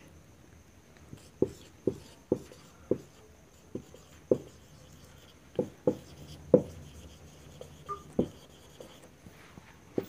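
Felt-tip marker writing on a whiteboard: irregular short taps and strokes of the tip against the board as letters are written.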